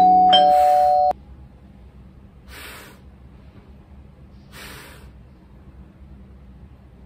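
A doorbell chime rings a loud two-note ding-dong, high then low, and cuts off abruptly about a second in. Two soft hissing sounds follow later.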